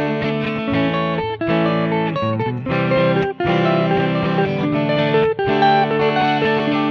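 Rock guitar music: an electric guitar played through effects, running through a line of single notes and chords.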